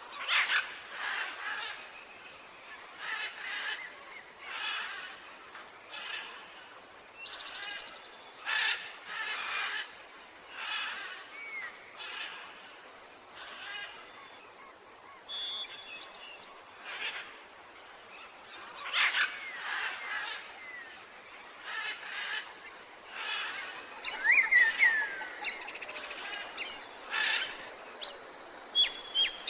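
Tropical forest ambience: a chorus of pulsing animal calls recurring every second or two, with birds chirping and whistling over it, including a burst of falling whistles about twenty-five seconds in.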